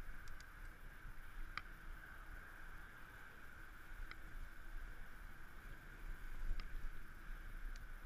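Bicycle rolling over paving stones: a steady muffled rumble of tyres and riding noise, with a few light clicks.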